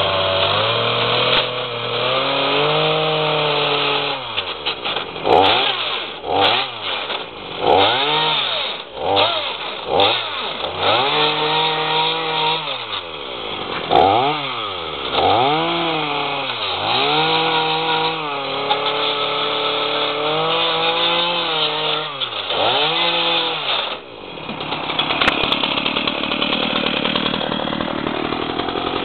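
Chainsaw revving up and down over and over as its chain cuts into a plastic portable CD player, then running more steadily for the last few seconds.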